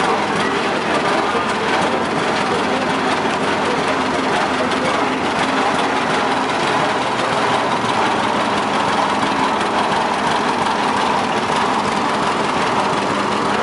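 Vintage tractor engines running steadily as the tractors drive past one after another, among them an old two-cylinder John Deere passing close by.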